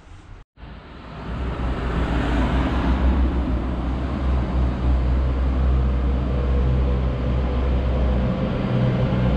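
A motor vehicle's engine running close by: a loud, steady low rumble with a broad hiss that swells about two seconds in, starting after a moment of silence at a cut about half a second in.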